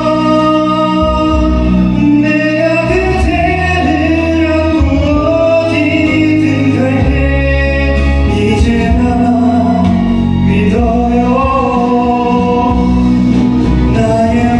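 A man singing a slow ballad over a musical accompaniment, in long, held melodic lines.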